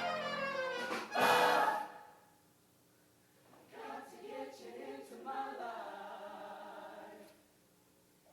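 Show choir singing: a loud accented chord about a second in is cut off sharply, followed by a pause and then a softer held chord passage that stops near the end.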